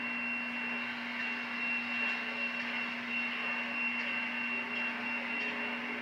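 Steam locomotive No. 40 hissing steadily, with a constant low hum and a thin high whine running through it and no chuffing beat.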